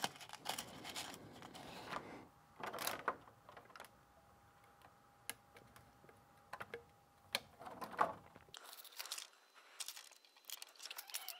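Faint, scattered clicks, taps and rustles of plastic being handled: a battery monitoring circuit board's plastic push-pegs being pressed into the holes of a Tesla battery module's clear plastic housing.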